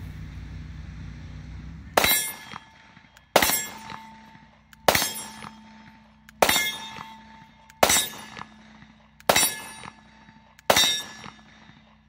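Canik TP9DA 9mm pistol firing seven evenly spaced shots, about one every second and a half, starting about two seconds in. Each crack has a short ringing tail. The first shot is a long double-action pull from the decocked state, and the rest follow in single action.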